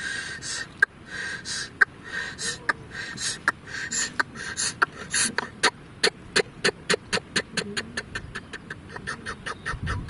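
A man imitating by mouth, hand cupped over his lips, a shallow-machine diesel irrigation-pump engine starting. Irregular sputtering pops speed up and settle into an even chugging of about five or six beats a second.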